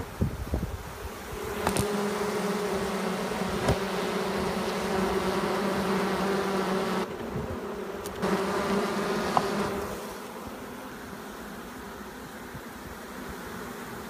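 A swarm of honey bees buzzing close to the microphone, a steady hum with overtones. It cuts out briefly about seven seconds in, returns, and grows softer after about ten seconds.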